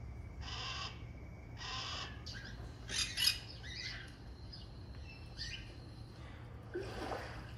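Birds calling: two short harsh calls, then a loud flurry of chirps about three seconds in and scattered calls after, over a steady low hum.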